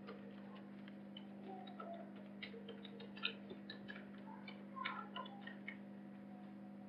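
Faint, irregular light clicks and taps over a steady low electrical hum.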